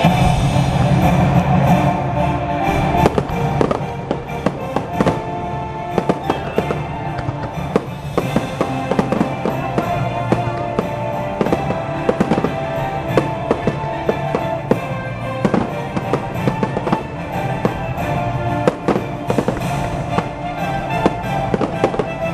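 Fireworks going off in rapid, sharp bangs and crackles, growing dense from about three seconds in, over loud show music.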